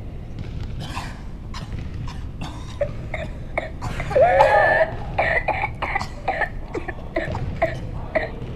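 A person's coughing fit, acted to imitate whooping cough: a rapid string of short coughs, broken about four seconds in by a loud, drawn-out whooping gasp, then more coughs. The whoop after the fit is the sign of the paroxysmal stage of pertussis.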